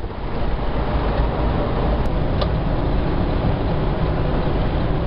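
Steady wind rushing through the open windows of a moving 18-wheeler's cab, over the low rumble of the truck and its tyres on the interstate.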